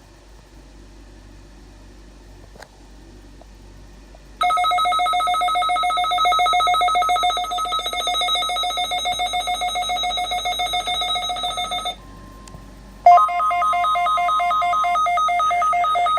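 Weather alert radio sounding its electronic test alarm: a loud, rapidly pulsing beep starts about four seconds in and runs for about seven seconds, stops briefly with only a faint steady tone left, then a warbling alarm tone comes back a second later.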